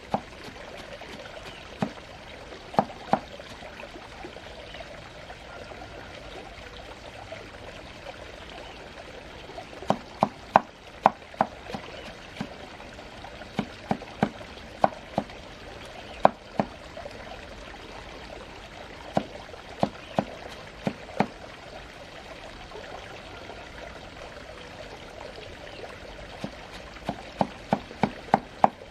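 Steady sound of running or pouring water, with scattered sharp knocks that come in quick runs about ten seconds in, near the middle and near the end.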